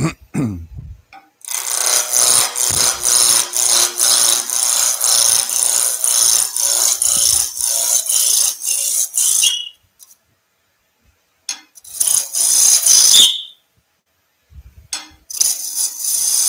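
Roughing gouge cutting a spinning wooden spindle blank on a lathe running at about 2,000 rpm: a hissing, scraping cut in three passes, a long one of about eight seconds, then two shorter ones with brief pauses between. The first two passes end in a short high squeal as the tool comes off.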